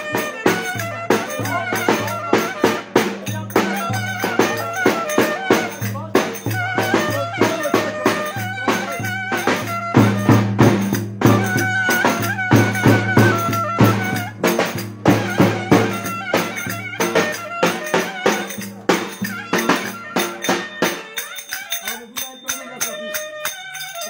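Davul, the large double-headed bass drum, beaten with a stick in a steady dance rhythm, with a melody instrument playing along over it. The drumming thins out about three seconds before the end, and voices come in.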